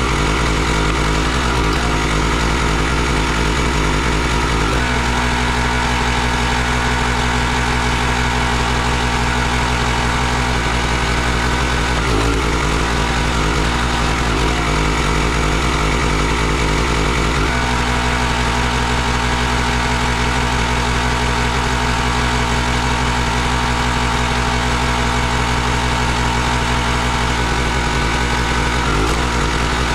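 Gas engine of a Country Line 32-ton log splitter running steadily, driving its hydraulic pump while the ram splits a log; its note shifts a few times as the ram works.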